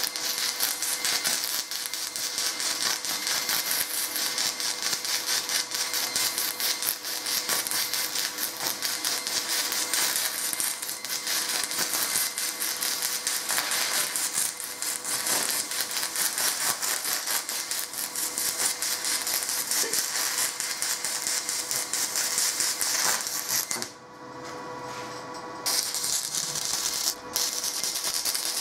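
Stick welding arc crackling and sputtering as a cast iron specialty rod is run in pulse mode on a cast iron casting. Near the end the arc goes out for a second or two, then strikes again and carries on.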